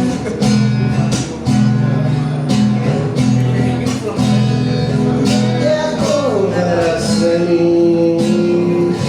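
Music: an instrumental passage of a ballad, with guitar chords over a steady beat. Past the middle, a melody line slides down and then holds one long note.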